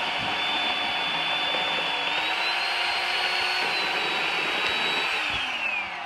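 Chainsaw running at high speed, cutting into the ash trunk. Its pitch steps up a little about two seconds in and falls away near the end as it slows.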